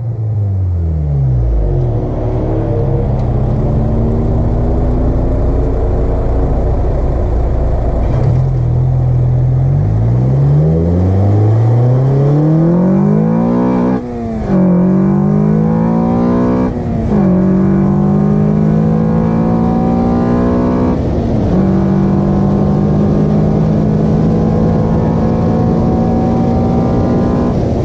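Car engine fitted with an Acuity cold air intake, first slowing down, then accelerating through the gears: the engine note climbs, drops sharply at each of three upshifts, and climbs again.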